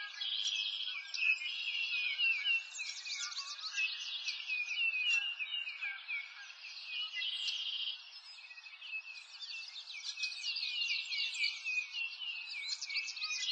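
A dense chorus of many small birds chirping at once, a steady stream of quick, high, overlapping chirps with no pause.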